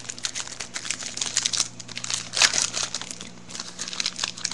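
Crinkling and rustling of a baseball card pack being handled: the foil wrapper and cards are shuffled in the hands, in irregular bursts with small clicks, the loudest about two and a half seconds in.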